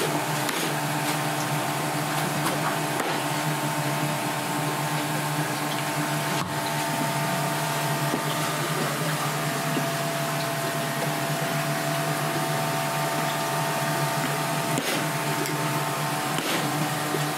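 Steady mechanical hum of kitchen equipment, a drone with several fixed tones over a hiss. A few faint knocks of a blade on a plastic cutting board, one a little sharper about six seconds in.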